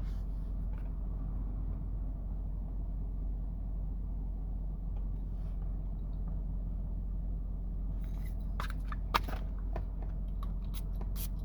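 Steady low hum, with a few light clicks and taps of packaging being handled starting about three-quarters of the way in.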